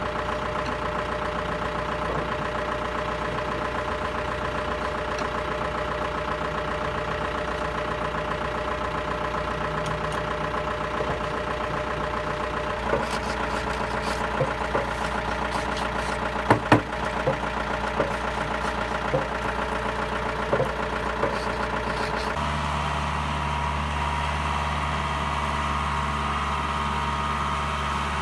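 New Holland 2120 tractor's diesel engine running steadily, its note shifting about halfway through and again near the end. Several sharp knocks and clanks come in the middle stretch.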